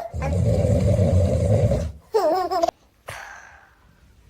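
A man snoring: one long snore of about two seconds. Then comes a short, high, wavering baby's vocalisation and a click.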